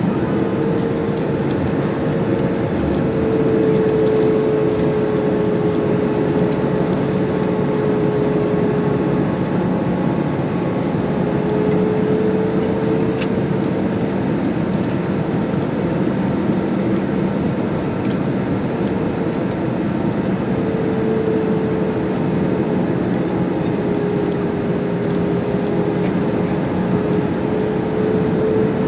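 Steady cabin noise inside an Airbus A320 in flight, from its CFM56 engines and the airflow: an even rush with a droning tone that wavers slightly in pitch and fades in and out.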